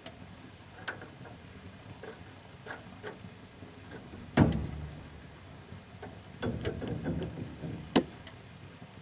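Scattered light metallic clicks and knocks of an outer wheel bearing being handled and pushed into a truck's rear wheel hub. There is a louder knock about four seconds in, a run of small knocks a little later, and another sharp one near the end.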